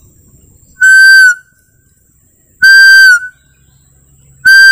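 Hand-made bamboo muntjac (kijang) call, voiced to imitate a fawn, blown three times: loud, steady high-pitched notes about half a second each, dipping slightly at the tail, spaced about two seconds apart.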